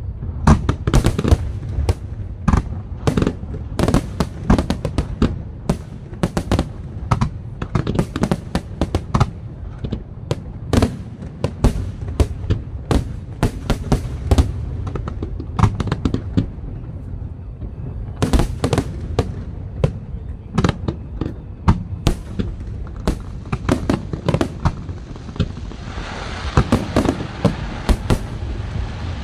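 Aerial fireworks shells bursting in rapid, overlapping bangs over a continuous low rumble, a dense barrage with no pause. Near the end a steadier hiss comes in under the bangs.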